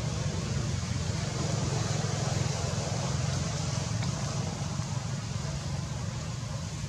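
Steady outdoor background noise: a low rumble with an even hiss over it, unchanging throughout.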